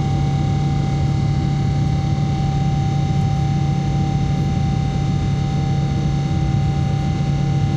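Steady cabin noise of a jet airliner in its climb after takeoff: an even engine and airflow drone with a strong low hum and a thin, steady whine.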